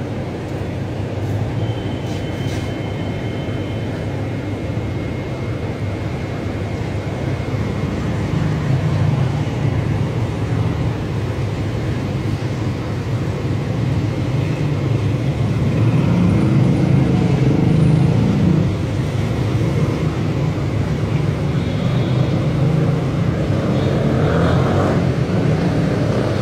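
Steady low rumbling background noise that swells at times, with two faint high-pitched tones held for a few seconds near the start.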